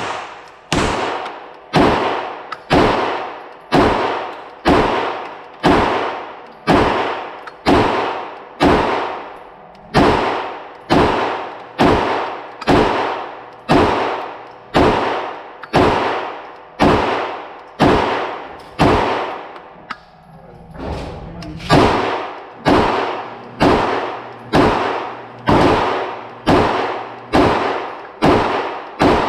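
9mm pistol in a META Tactical MX-1 conversion chassis, firing 115-grain FMJ as a steady string of single semi-automatic shots, about one a second, each shot ringing out briefly. There is a short pause about twenty seconds in, then the shooting resumes.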